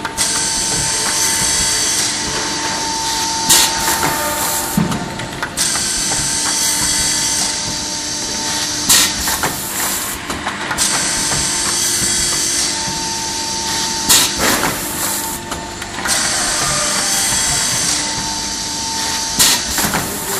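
Track-fed multi-spindle boring machine running and drilling holes in chipboard or MDF panels, with a steady motor hum. Its work comes in repeating cycles: a few seconds of high-pitched drilling noise, then a short lull, with a sharp clunk about every five seconds.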